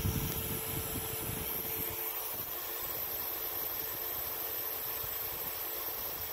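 Home-built Kapanadze-style Tesla resonator circuit running with a steady hiss and a thin, high-pitched whine, while a low rumble dies away over the first two seconds. It is a sound that won't go away, which the builder suspects is something arcing in the circuit or the power supply straining.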